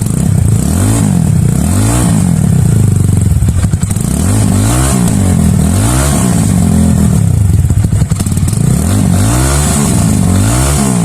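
Italika Vortx 250 motorcycle engine running through an aftermarket Chinese exhaust with its dB killer fitted, revved in repeated short throttle blips, each a quick rise and fall in pitch. With the dB killer in, it is not too loud and has a pleasing tone.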